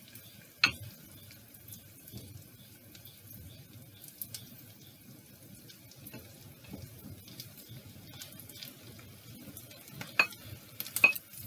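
Wooden spatula knocking and scraping cut bitter gourd off a plate into a clay pot, with a sharp knock about a second in and a cluster of clicks near the end, over a faint sizzle of onions and curry leaves frying in coconut oil.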